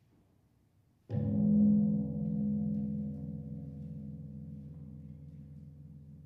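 A large gong struck once about a second in. Its tone swells briefly, then rings on with several steady tones, slowly dying away.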